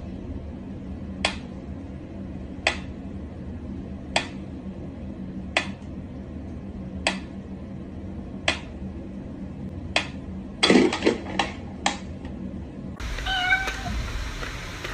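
Mechanical pendulum metronome ticking slowly and evenly, about one tick every one and a half seconds. About ten seconds in, a quick run of louder clicks and knocks follows as a cat paws at the metronome.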